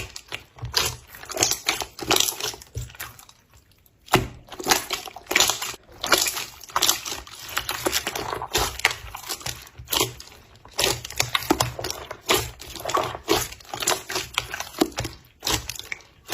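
Slime being squished and pressed by hand: an irregular run of short, wet, sticky crackles and pops, with a brief pause about three and a half seconds in.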